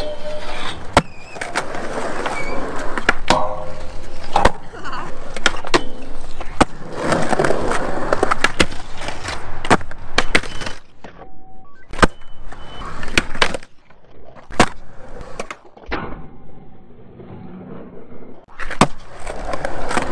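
Skateboard rolling on concrete, with many sharp pops and clacks from tail snaps, board flips and landings. At the start the board grinds along a metal rail.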